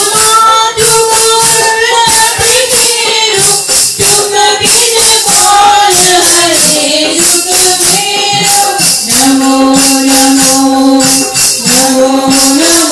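Loud live devotional music: a melody of long held notes that step lower partway through, over a steady beat of jingling hand percussion like a tambourine.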